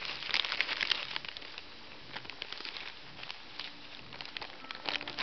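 Plastic potato chip bag crinkling and crackling as a hand rummages inside it for a chip. It is densest in the first second, then thins to scattered crackles, with a brief flurry near the end.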